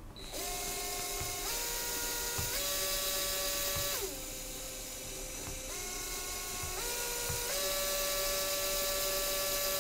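LEGO Power Functions medium motor running under BuWizz control with a steady gear whine. Its pitch steps up twice, drops about four seconds in, then climbs again in three steps as the speed and power level are switched.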